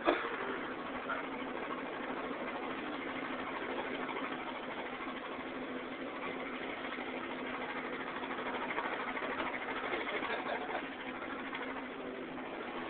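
A steady mechanical drone, like an engine or motor running at idle, with a brief click at the start.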